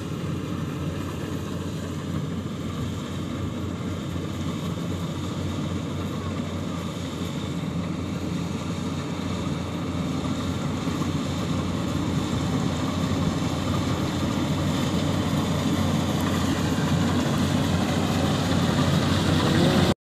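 Yanmar YH850 rice combine harvester running steadily while harvesting, its engine drone growing gradually louder as the machine comes closer.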